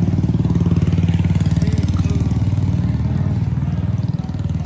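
A motor vehicle's engine running steadily, with a fast even pulse.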